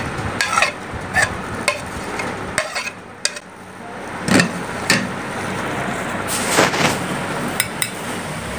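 Metal spoon scraping and tapping against a ceramic plate and a glass mixing bowl as chopped green chillies and coriander are scraped in: a string of light clinks and taps, with a longer scrape about two-thirds of the way through, over a steady background hiss.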